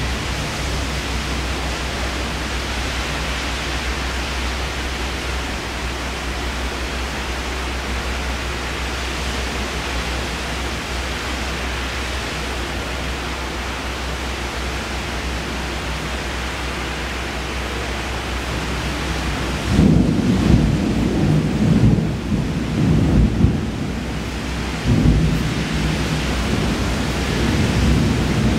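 Steady hiss of heavy rain during a thunderstorm. About two-thirds of the way in, low thunder rumbles begin, swelling and fading several times.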